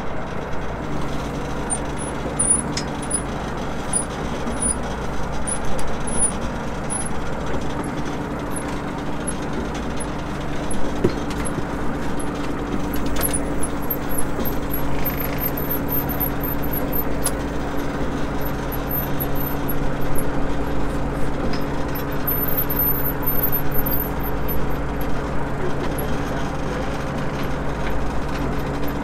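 Fishing boat's engine running steadily, with a low even hum that joins about a second in and holds.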